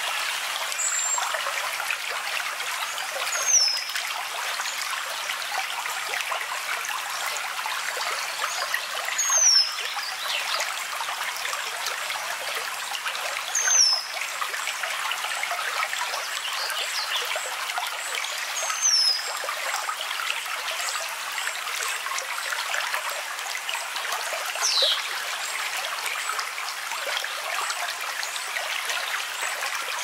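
Steady running water of a small stream, with a bird giving several short, high, falling whistles a few seconds apart.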